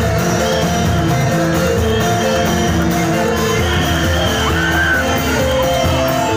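Loud live music from a reog troupe: a stepping melodic line over a dense, steady low beat, with a few shouts and whoops over it.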